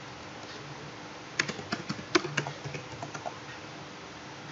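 Computer keyboard being typed on: a quick run of about ten keystrokes, starting about a second and a half in and lasting about two seconds.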